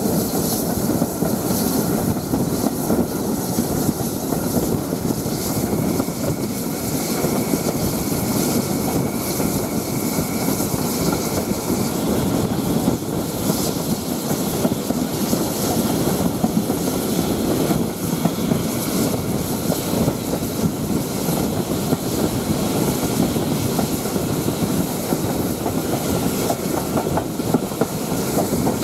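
Heritage railway passenger coach running along the line, heard from its window: a steady rumble and clatter of the wheels on the track.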